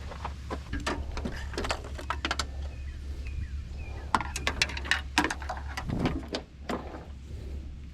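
A string of sharp clicks and knocks, like tools and parts being handled, over a steady low hum.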